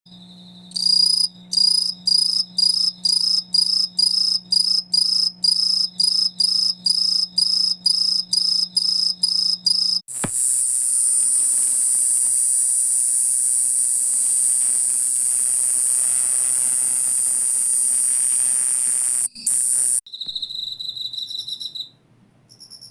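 Several singing insects heard one after another. First come evenly spaced high chirps, about two a second, for some ten seconds. Then a steady, very high-pitched shrill song stops abruptly after about nine seconds, and a brief faster trill follows near the end.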